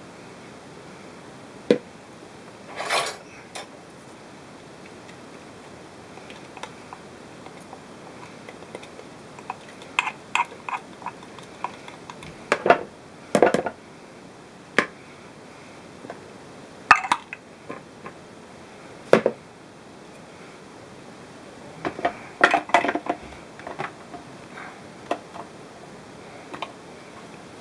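Plastic spatula scraping and tapping chopped onion out of a plastic bowl and a mini food chopper's bowl, with scattered irregular knocks and clinks as the chopper's blade and bowl are handled.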